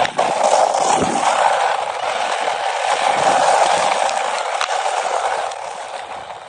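Radio-controlled 4WD off-road car driving over rough ground: a steady motor whine with dense noisy rolling and scattered clicks from the wheels, easing off slightly near the end.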